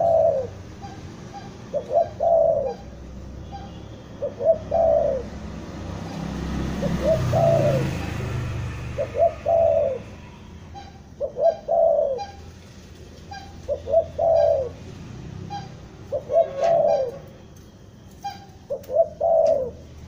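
Spotted dove cooing over and over: each phrase is a few quick short notes ending in a longer arched coo, repeated about every two and a half seconds. A low rumble swells and fades about halfway through.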